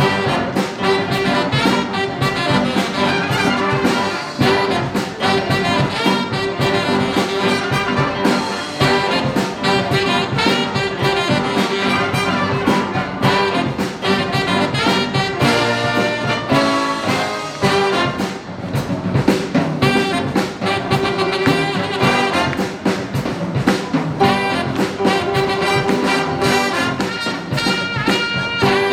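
A big band playing a jazz tune live, its trumpets, trombones and saxophones sounding together in a full, loud ensemble over bass and drums.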